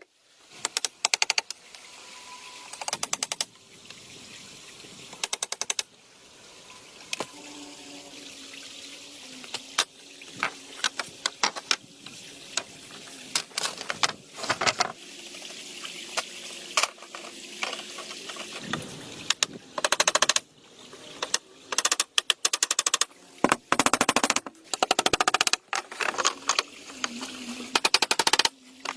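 Repeated short bursts of rapid, closely spaced clicking and knocking from hand work on wood, with a steady rush of stream water between them.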